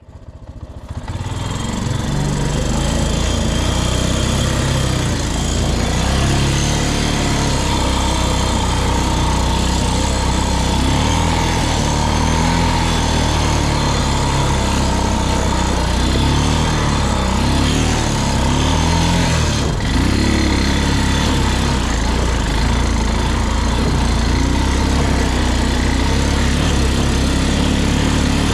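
An engine running steadily, rising out of silence over the first two seconds, its pitch swelling and dipping a little in the middle of the stretch.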